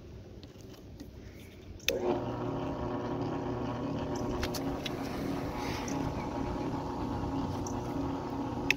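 Hobart 20-quart three-speed mixer switched on with a click about two seconds in, its motor and gear drive running unloaded with a steady hum, then a click near the end as it is switched off.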